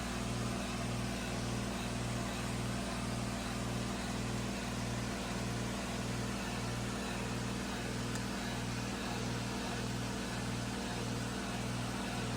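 Heat pump compressor running in heat mode: a steady low hum with a regular throb a little under twice a second, over a steady hiss. To the owner it sounds bad, a "very angry compressor", while the coil is iced over and the unit has not gone into defrost.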